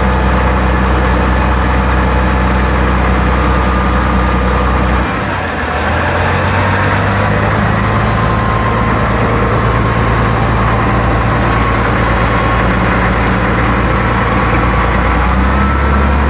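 Caterpillar 966C wheel loader's diesel engine running while the machine drives, heard from inside the cab. About five seconds in the engine note steps up to a higher steady pitch, and it drops back near the end. A faint thin whine sits above it.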